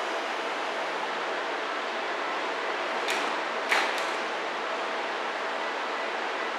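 Doors of a Seibu 3000 series commuter train closing at the platform: two short, sharp hisses with a knock about three and four seconds in, the second the louder. A steady hiss runs underneath.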